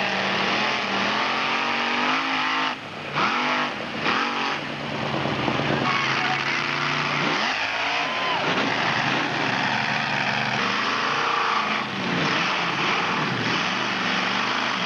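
Mud-bog vehicle's engine revving hard, its pitch swooping up and down again and again as the throttle is worked, with a couple of brief drops about three and four seconds in.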